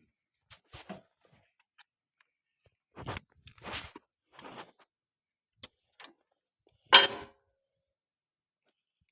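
Scattered knocks and clinks of a spanner and metal parts being handled, a few seconds apart, the loudest a single clank about seven seconds in.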